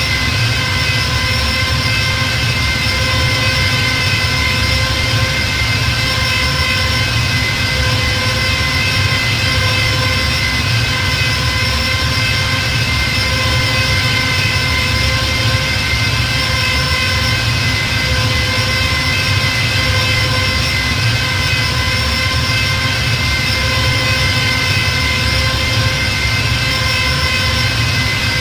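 Star Wars TIE fighter engine sound effect: a steady, unchanging engine hum with a low rumble beneath a high, even whine.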